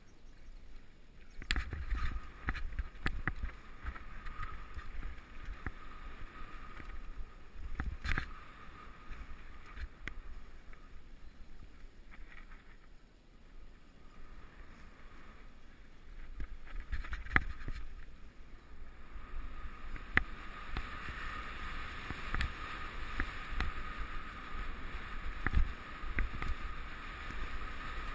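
Ride noise from a mountain bike descending a dirt woodland trail: tyres rumbling over the ground, the bike rattling with sharp knocks over bumps, and wind buffeting the helmet-mounted microphone. A steady high whir runs under it, louder in the last third.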